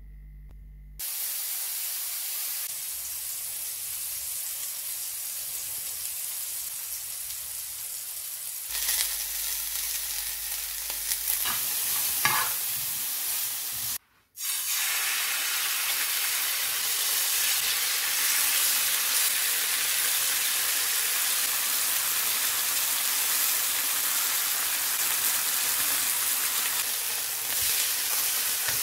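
Chicken breast fillets frying in a non-stick pan with a steady sizzle. A few sharp clicks come from about nine to twelve seconds in, and the sound drops out for a moment about fourteen seconds in.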